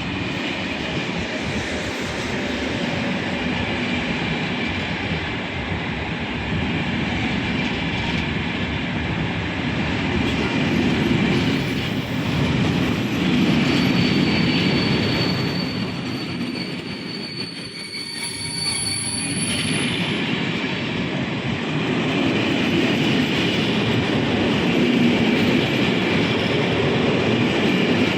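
Train rolling past on the track, a continuous rumble of wheels and wagons with thin high squealing tones from the wheels midway. The sound dips briefly about two-thirds of the way through, then builds again.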